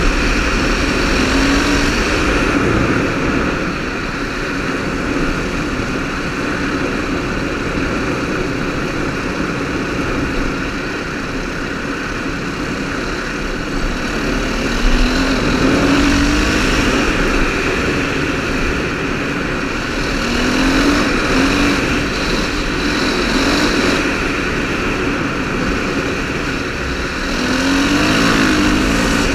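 KTM 530 rally motorcycle's single-cylinder four-stroke engine running under way on a gravel road, its note rising in pitch a few times as the rider accelerates. A heavy rush of wind on the camera's microphone runs under the engine.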